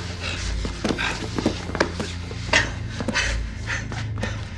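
Fight sound effects: a quick run of a dozen or so sharp punch and body-blow impacts, with a fighter's breathing and grunts, over a low steady rumble.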